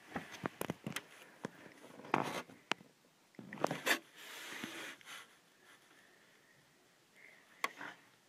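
Scattered sharp clicks and short bursts of rustling, as of someone shifting in bed or handling the camera, then quiet room tone for the last few seconds.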